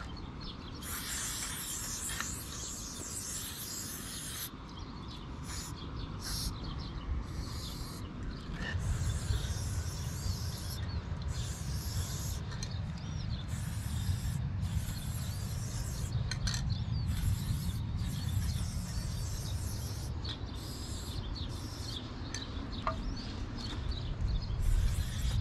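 Aerosol spray paint can hissing in repeated bursts: one long spray about a second in, then many short squirts. A low rumble runs underneath from about nine seconds in.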